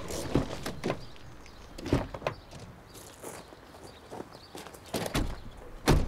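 A few scattered footsteps and knocks, then a car door slammed shut near the end, the loudest sound.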